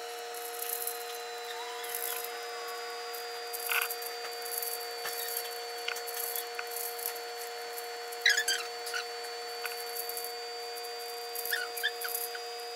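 Plastic 4x4 Rubik's cube being turned, a run of quick clicks and clacks from its layers, over a steady two-tone electrical hum. A few short squeaky chirps come about eight seconds in and again near the end.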